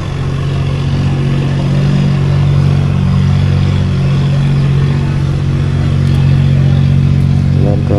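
Small boat's engine idling steadily, a constant low running note.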